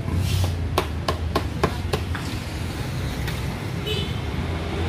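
Metal dough scraper chopping through kaloci rice cakes against a metal tray: about six quick, sharp taps in a little over a second, then one fainter tap, over a steady low rumble.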